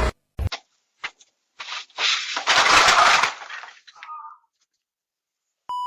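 A few sharp clicks, then a loud crashing, breaking noise lasting about a second and a half, followed near the end by a short steady beep.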